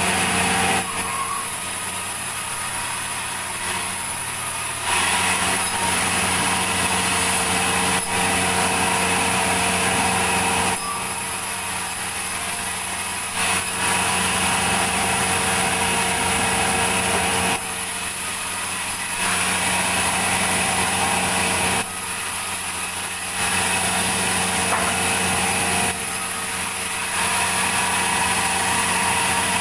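Sawmill saw running steadily through logs, with a constant machine hum under it. The sound drops a little and comes back every few seconds, five times, as the saw goes in and out of the wood.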